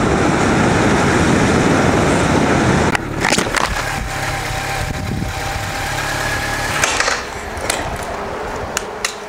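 Honda CB1100EX air-cooled inline-four running at road speed under heavy wind rush. About three seconds in, this gives way to the engine running slowly and more quietly at low speed. It gets quieter still near the end, with a few scattered clicks.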